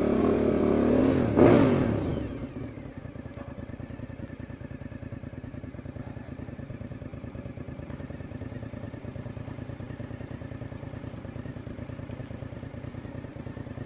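Suzuki motorcycle engine revving up briefly about a second and a half in, then running at low revs with a fast, even pulse as the bike rolls slowly.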